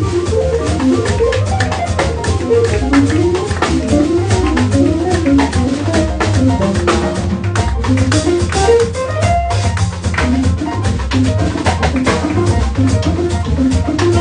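Live jazz combo playing: a semi-hollow electric guitar plays a winding single-note solo over drum kit and double bass.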